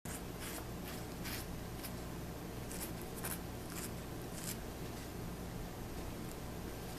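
Brief, soft scratchy rustles, about eight in the first five seconds, as two cats nose and mouth a plush cigar toy; a low steady hum underneath.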